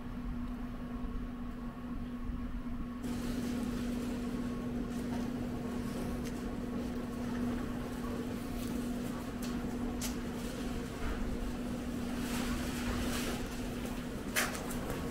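Yamaha EF2800iSE inverter generator running steadily with a constant hum, with a sharp click about two-thirds through and another near the end.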